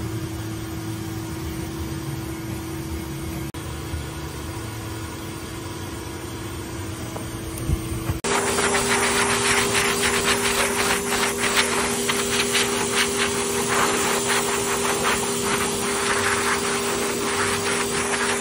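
Pet blow dryer running steadily with a constant motor whine and rushing air as it dries a wet puppy's coat. About eight seconds in it abruptly gets louder, with a slightly higher whine.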